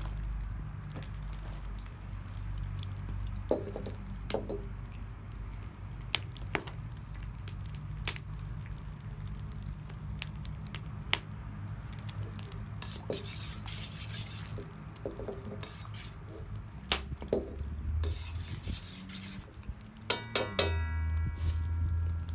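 Fried rice being stirred in a pan over a campfire: a cooking utensil scraping and knocking against the pan in scattered clinks. About 20 seconds in, a quick cluster of harder strikes sets the metal ringing briefly.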